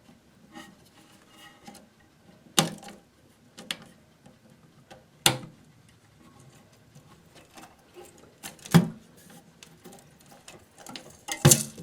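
Hands fitting a rubber toilet flapper onto the plastic ears of the flush valve inside the tank: scattered clicks and knocks with low handling noise, the strongest knock near the end.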